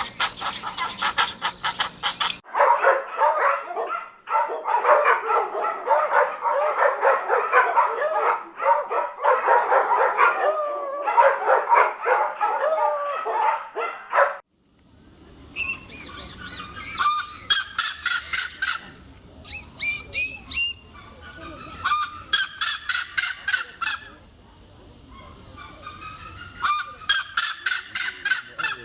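A flock of geese honking, many calls overlapping, stopping abruptly about halfway through. Then runs of high, quick chirping calls in short bursts with pauses between.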